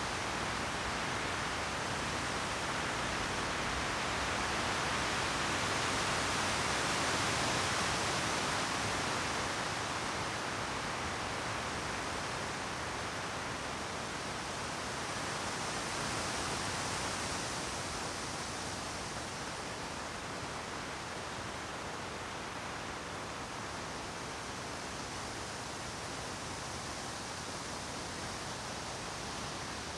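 Wind rushing through conifer trees, a steady noisy rush of swaying branches and needles. It swells in gusts about seven seconds in and again around sixteen seconds, then eases a little.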